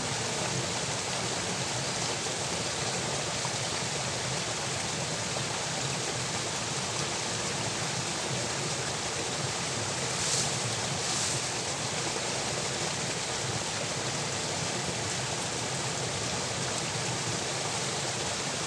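Steady rushing of water flowing through an irrigation channel from a culvert. Two brief soft swishes stand out a little past halfway.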